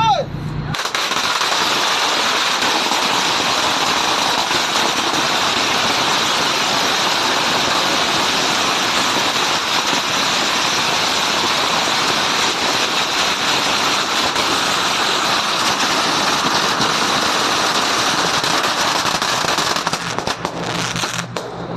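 A string of firecrackers going off in a dense, continuous rapid crackle, starting suddenly about a second in and thinning to scattered bangs near the end.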